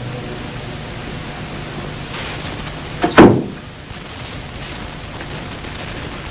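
A steady hiss with one loud, sudden crack about three seconds in.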